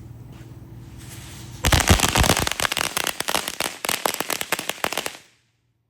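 Firework crackling: a fast, dense run of sharp pops that starts suddenly about a second and a half in and lasts about three and a half seconds.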